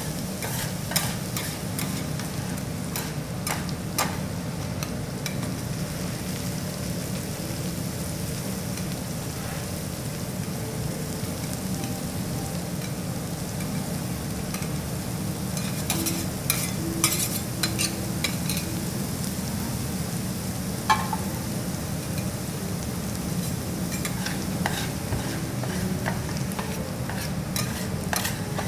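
Garlic fried rice sizzling steadily in oil on a flat steel teppanyaki griddle, with scattered clicks and scrapes of two metal spatulas against the plate, most of them about halfway through and near the end.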